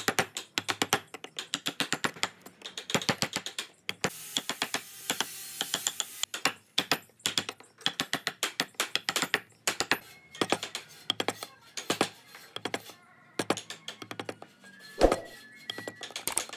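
Hand carving tools cutting wood: rapid, irregular clicks and taps, with a brief scraping hiss about four seconds in and a single sharper knock near the end, over soft background music.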